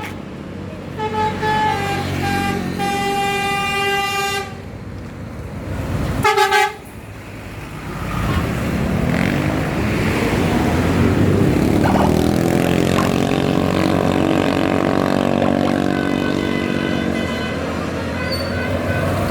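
A bus's telolet (basuri) musical horn plays a short tune of several stepped notes, then gives one brief loud toot. The bus's engine then runs loud with its pitch rising as it pulls away and passes.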